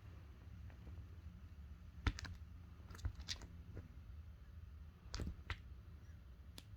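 A few faint, irregular clicks and taps, about six in all, over a low steady hum.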